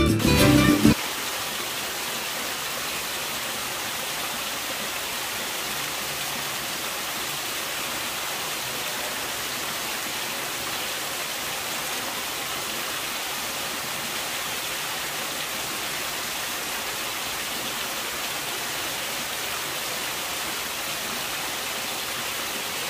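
Guitar music cuts off about a second in, leaving the steady splashing of water from a small rock waterfall and tiered stone fountain falling into a garden pool, an even, unchanging rush.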